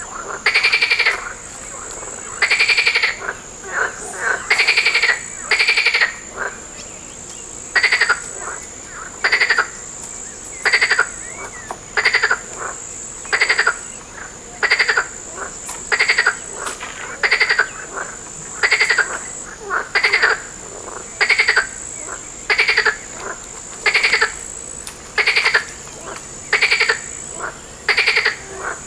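A frog croaking over and over, one short rattling call about every one and a half seconds, with a steady high-pitched hiss running underneath.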